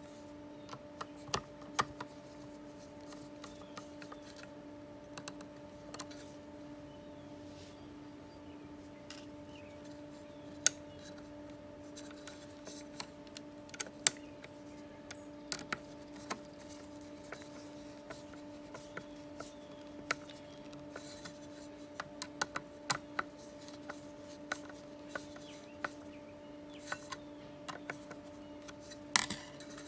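Irregular clicks and taps of a screwdriver and screws against a hard drive's sheet-metal mounting plate as new rubber grommet isolators are pressed in and screwed down, with a few sharper knocks, over a steady low hum.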